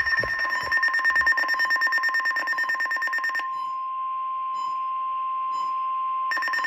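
Weather radio emergency alert tones. A rapidly pulsing electronic alarm runs for about three and a half seconds, then gives way to a single steady alarm tone for about three seconds, and the pulsing alarm comes back near the end. They signal that a new severe thunderstorm warning is about to be read.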